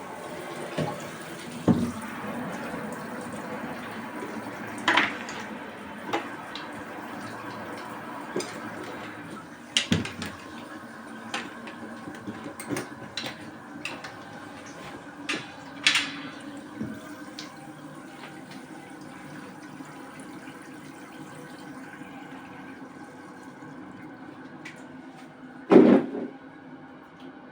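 Water running into the tub of a mini manual washing machine, a steady hiss, with scattered knocks and clatters and one loud thump near the end.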